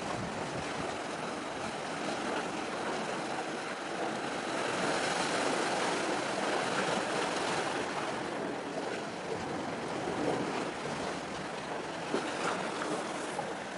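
Steady wash of wind and sea waves: an even hiss with no distinct engine tone or knocks.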